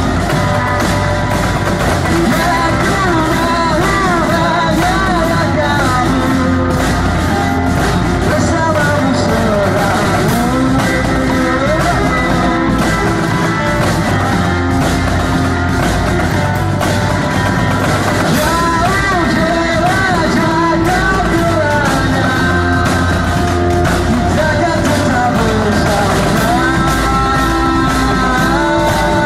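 Rock song with a sung vocal, electric guitar and drums, playing continuously at a steady loud level.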